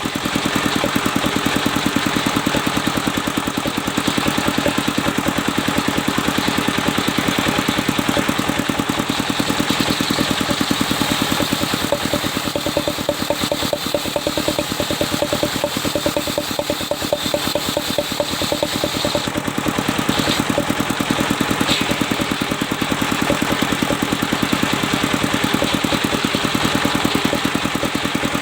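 Engine of a sawmill's machine saw running steadily with a fast, even pulsing beat.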